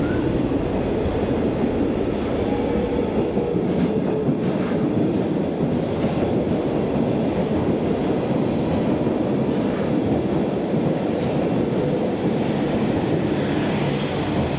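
A train running along the track at a station, a steady wheel-on-rail noise that holds without a break.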